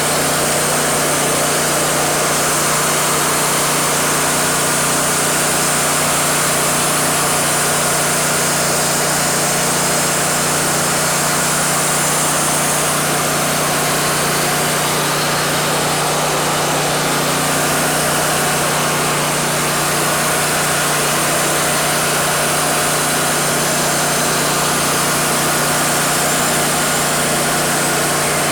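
Wood-Mizer LT40 band sawmill running steadily, its engine holding one even pitch with no change in speed or load.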